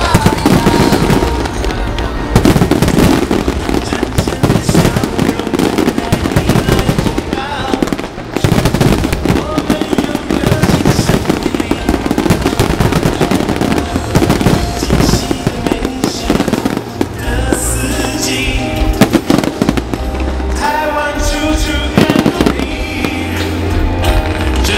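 Fireworks bursting in rapid, dense succession with crackling, over music playing throughout.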